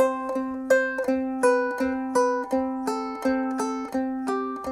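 Ukulele fingerpicked, the thumb on the open third string alternating with the index finger on a higher string, about three notes a second. The low note repeats throughout while the upper notes step from one pitch to another.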